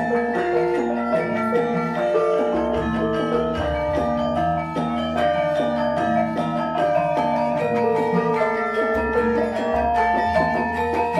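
Bronze Javanese gamelan ensemble playing a lancaran in pelog tuning: mallet-struck bronze keys and kettle gongs (saron, bonang) ring out a steady, even-paced melody over deep gong tones that swell in about two and a half and nine seconds in.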